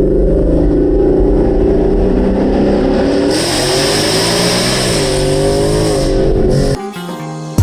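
2018 Mustang GT's 5.0 Coyote V8 running through a free-flowing exhaust with Borla S-Type axle-back mufflers, engine speed holding fairly steady with small rises and dips. A hiss joins about three seconds in, and the sound cuts off near the end.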